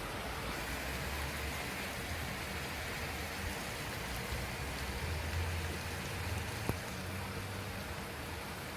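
Steady rain-like hiss, with a low rumble that comes and goes and a single click about two-thirds of the way through.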